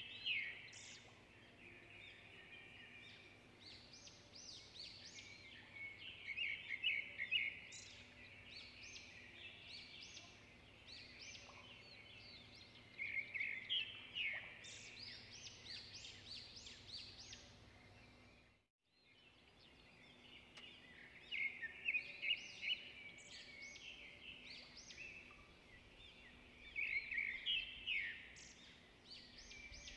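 Small birds chirping in quick high-pitched clusters every few seconds over a faint steady hum. The sound fades out to silence for a moment about two-thirds of the way through, then comes back.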